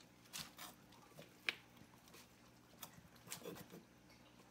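Faint, scattered rustles and soft wet sounds of a mother dog working over her newborn puppy, with a sharper click about a second and a half in.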